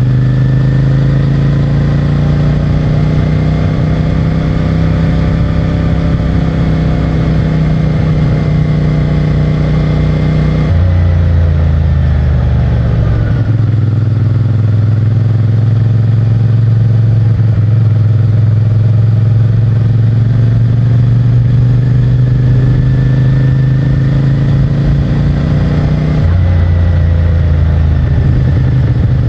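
CFMOTO 450MT's parallel-twin engine on its stock exhaust, running under way on the road. The engine note drifts slowly up and down and changes abruptly about 11 seconds in and again near the end.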